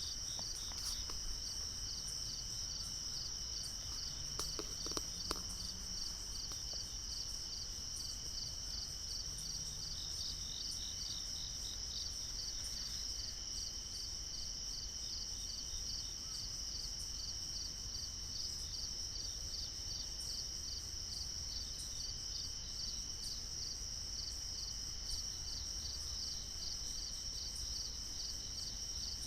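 Steady nighttime chorus of crickets and other insects: a continuous high trill with a fast, even pulsing layer just beneath it.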